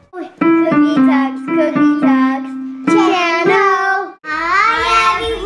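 A child singing a short melody over digital piano accompaniment, with a brief break about four seconds in.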